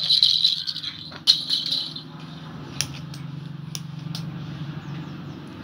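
High rattling in two short spells within the first two seconds, then a few sharp clicks, over a steady low hum, as a baby crawls on a stone floor.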